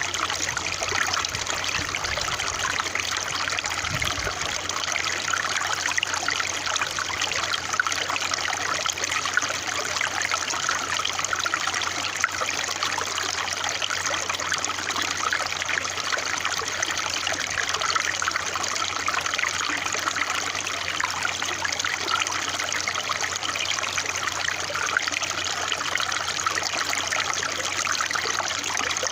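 A small stream of running water trickling steadily, without a break.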